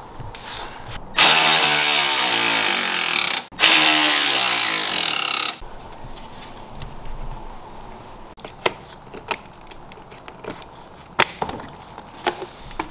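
A handheld power tool runs in two bursts of about two seconds each, its pitch falling during each burst, followed by scattered light clicks and knocks of parts being handled.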